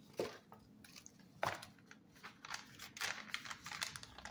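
Paper release sheet of sticky-backed velvet crinkling and rustling as it is peeled back and handled, with scattered short crackles and two sharper clicks, the first just after the start and the loudest about a second and a half in.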